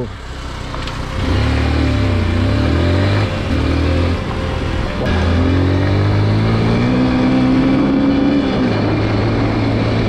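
Motor vehicle engine under way, its pitch dipping and rising in the first few seconds, then climbing steadily as it accelerates from about halfway through.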